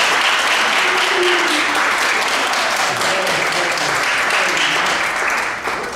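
Audience applauding at the end of a performance, with a few voices among the clapping; the applause dies away near the end.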